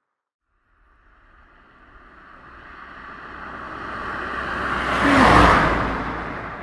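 A vehicle passing close by: a rushing noise with a low rumble that builds steadily for about four seconds, peaks about five seconds in, then fades away.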